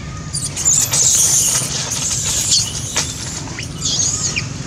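Long-tailed macaque screaming: a run of shrill, gliding squeals for about two and a half seconds, then another short burst near the end. These are the distress screams of a young monkey squabbling with its mother over nursing.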